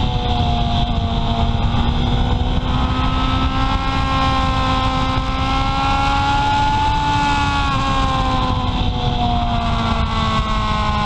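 Honda CB750 Sevenfifty's air-cooled inline-four engine with its stock exhaust, running under way. The engine note climbs slowly through the middle, drops about eight seconds in, then climbs again, over a steady low rush of wind and road noise.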